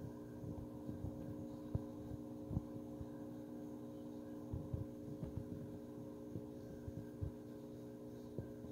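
Steady electric hum of aquarium equipment running, with faint irregular low taps and pops throughout.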